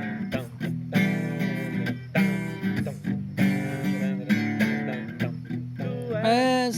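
Acoustic guitar strumming chords in a steady rhythm as the introduction to a song; near the end a man's singing voice comes in over it.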